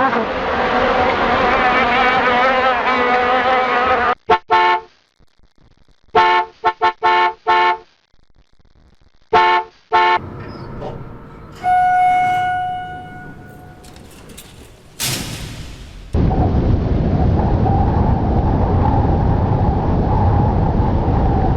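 A string of separate sound effects, the clearest being car-horn honks. There are two short beeps, then a quick run of about five, then two more. Before them are some wavering pitched tones, and after them a single held tone that fades, one sharp crack, and then a loud, steady noise.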